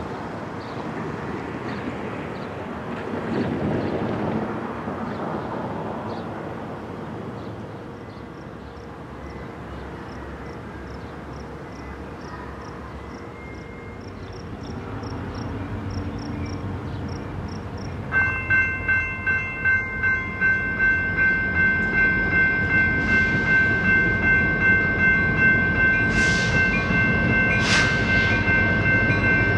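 A railroad grade-crossing bell starts ringing about two-thirds of the way in, a rapid, even ding about twice a second. Under it the low rumble of an approaching diesel freight train, led by an EMD SD40-2 locomotive, grows louder.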